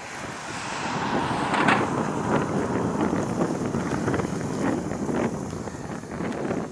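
Gusty wind buffeting the microphone, growing stronger about a second in, over a low rumble.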